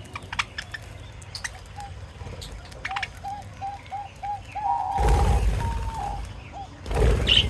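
Cage birds calling: a dove gives a quick series of short cooing notes in the middle, among scattered sharp chirps from small birds such as lovebirds or budgies. Two loud rushing noises break in, one about five seconds in and one near the end.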